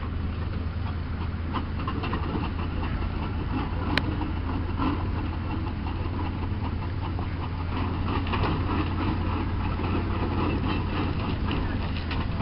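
Steam traction engine working as it climbs a ramp onto a low-loader, its exhaust beats chuffing rhythmically and growing stronger about halfway through, over a steady low engine drone. A single sharp click about four seconds in.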